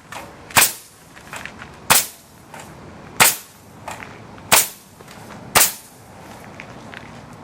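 A high-pressure pneumatic nailer fires into a block of hard concrete five times, one sharp shot roughly every second and a quarter.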